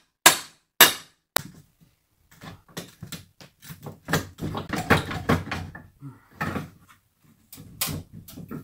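Hammer blows knocking on a wooden door frame as it is torn out: three sharp strikes, then a run of rapid cracking and scraping as the framing is worked loose, and a few more knocks near the end.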